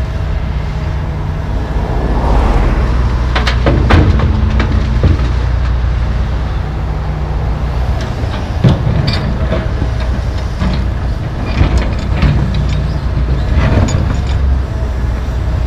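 Diesel engines of a John Deere 245G track excavator and a John Deere 300D articulated dump truck running steadily. A few seconds in, a load of dirt and broken concrete clatters into the truck's steel dump bed. Afterwards the bucket knocks and scrapes against the concrete debris as it digs the next load, with several sharp clanks.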